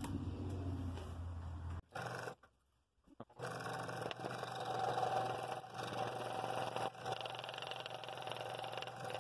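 Scroll saw cutting a 3/4-inch mahogany bowl blank at a 35-degree bevel, the blade running steadily through the wood. A short break in the sound about two seconds in, then the cutting continues to the end.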